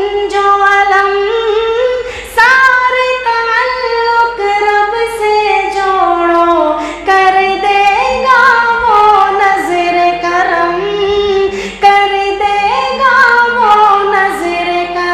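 A man singing an Urdu naat unaccompanied in a high voice, drawing out a line in long held notes that bend and slide between pitches, with short breaths between phrases.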